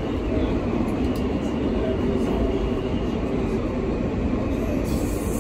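New York City subway F train car running along the track, heard from inside the car: a steady, loud rumble.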